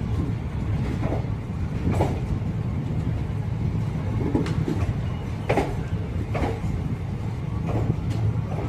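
Indian Railways train running on the track: a steady low rumble with a sharp clack every second or so.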